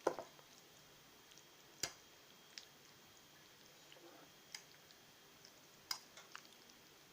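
Faint, scattered clicks and taps of cutlery on a plate during eating, the sharpest about two seconds in and again near six seconds in.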